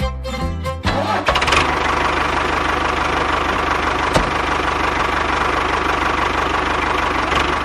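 A short bit of fiddle music ends, then a tractor engine starts and runs steadily with a fast, even chug. There is a single sharp click about four seconds in.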